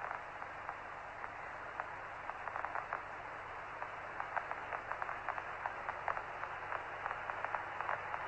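Hiss of the Apollo 11 mission radio voice loop, held open between transmissions, with scattered crackles and clicks that come more often after the first couple of seconds.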